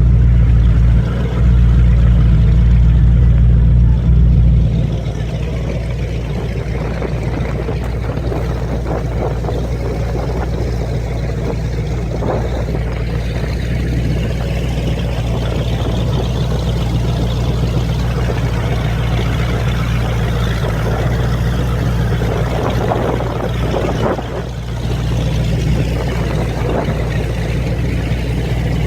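Motorboat engine running steadily with a low drone and the rush of water and wind. It is louder for the first few seconds, then settles to an even level.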